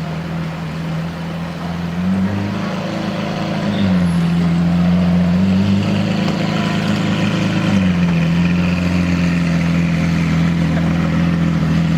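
Lamborghini Aventador SV's V12 engine idling, its pitch stepping up and back down several times.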